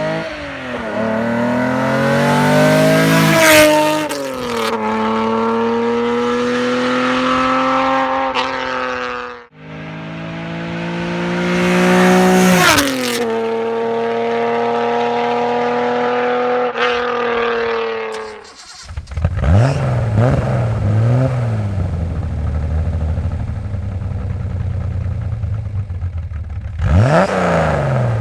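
Nissan Datsun 240Z's straight-six engine pulling hard with the pitch rising, shifting up once, then holding a steady high pitch. The take cuts off abruptly and the same sequence repeats. After that the engine runs at low revs, wavering up and down, with a short blip near the end.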